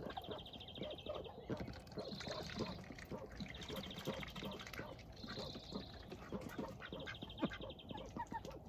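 Ducks feeding around a water tub: a steady patter of soft pecking and dabbling clicks. A high, fast trill repeats about every one and a half seconds behind them.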